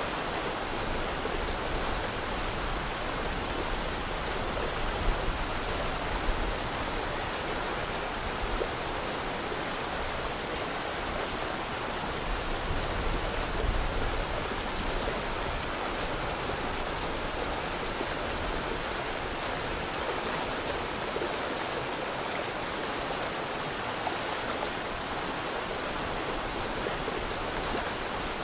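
Steady rushing water of a rainforest waterfall, an even hiss with a low rumble beneath it.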